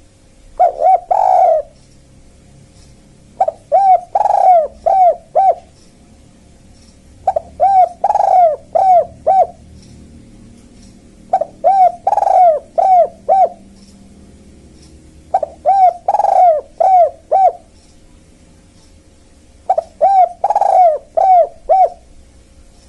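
Spotted dove cooing: six phrases about four seconds apart, each a quick run of several hoarse, arching coos. This is the 'kuk-kuk' call that is played as a lure to draw spotted doves in. A faint steady hum runs underneath.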